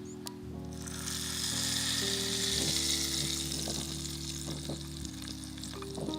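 Food sizzling as it fries, a hiss that starts about half a second in, swells, and eases off near the end, over background music with sustained notes.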